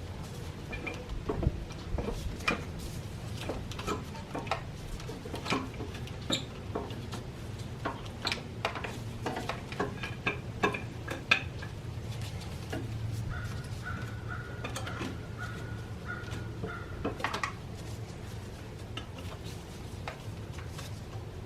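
Metal hand tools and engine parts clinking and knocking in irregular sharp clicks, over a low steady hum. A thin steady tone sounds for a few seconds past the middle.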